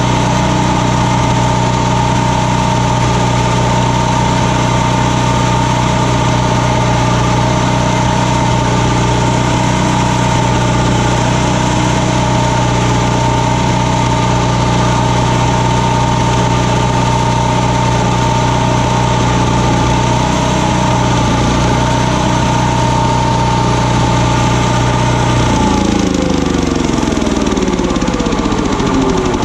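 Old chipper shredder's small gasoline engine running steadily at speed, then about 25 seconds in its speed drops and the pitch falls steadily through the end.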